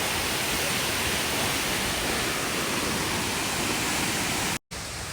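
Bouma waterfall pouring steadily, a dense, even rushing of falling water. It breaks off for an instant near the end and comes back quieter.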